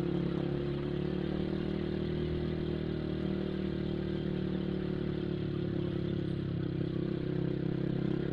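Motorcycle engine running at a steady speed while riding, an even hum with no revving.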